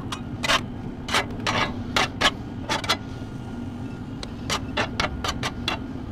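Metal spatula scraping and tapping on a hot flat skillet as shredded beef and eggs are turned and spread. The strokes come irregularly, pause briefly about three seconds in, then come quicker near the end.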